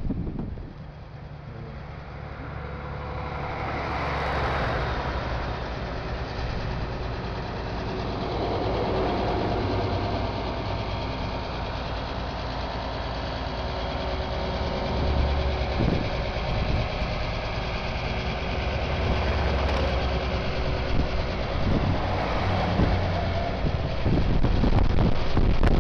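Military trucks in a convoy driving past one after another, their engines running steadily, the sound swelling and fading as each vehicle goes by.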